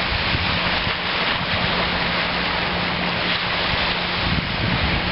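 Steady rush of wind on the microphone mixed with small waves washing onto the beach.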